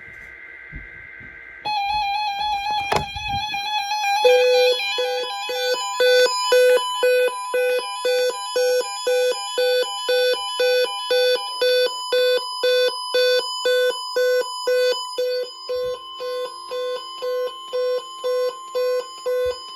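Emergency alert signalling on a NOAA Weather Radio broadcast: a brief warbling burst of SAME data tones, then electronic alarm tones. A steady tone gives way to a repeated beeping about two to three times a second, with a steady tone of about 1 kHz joining under the beeps about halfway through.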